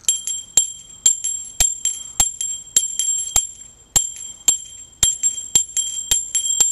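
A Salvation Army kettle handbell rung steadily by hand, about two strokes a second, each stroke ringing on with a clear high tone.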